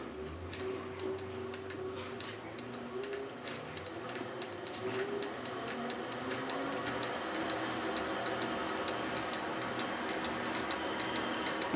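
1968 Hardinge TFB toolroom lathe running very slowly on its electronic phase-converter drive while the speed is turned up. A regular mechanical ticking grows steadily faster as the spindle speeds up, over a faint motor hum that rises in pitch.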